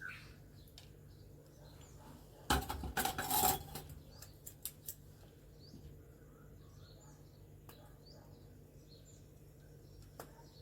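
Small hard clicks and clinks of tools and parts being handled on a workbench, with a short louder clatter about two and a half seconds in, over a faint steady hum.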